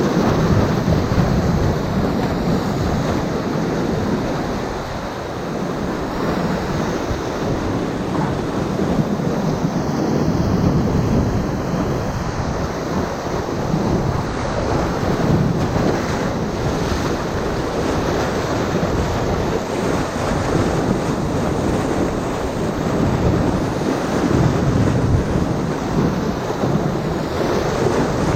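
Whitewater of a Class IV rapid, churning in a loud, steady rush that swells and eases.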